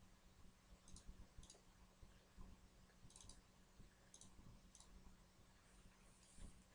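Near silence with several faint computer-mouse clicks spaced about a second apart, over a faint steady low hum.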